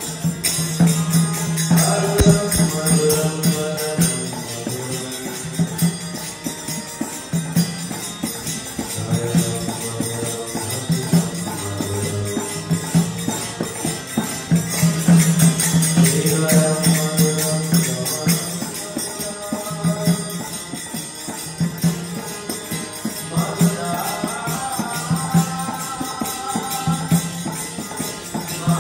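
Devotional kirtan: a male voice singing over a harmonium's held chords, with a two-headed mridanga drum beating a steady rhythm and small hand cymbals (karatals) jingling throughout.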